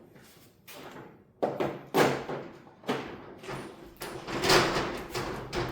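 Shutters rattling and banging in gusty wind, in a series of irregular noisy surges, the longest about four seconds in.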